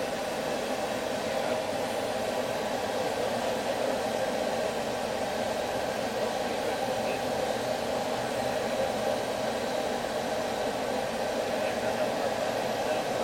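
Steady rushing noise from a blower, unchanging throughout, with no hammer strikes.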